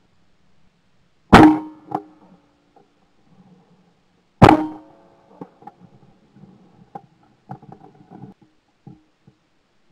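Two shotgun shots fired at clay targets, about three seconds apart, each a sharp loud report. A fainter crack comes about half a second after the first. Light clicks and knocks follow after the second shot.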